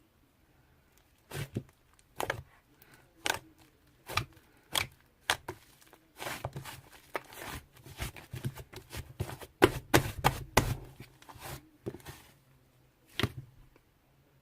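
A series of sharp knocks or taps, spaced about a second apart at first, then a denser irregular clatter in the middle, then a few more single knocks near the end.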